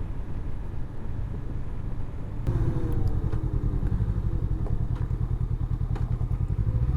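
Honda CB500X's parallel-twin engine running as the motorcycle is ridden, picking up about two and a half seconds in and then slowly falling in pitch as it eases off.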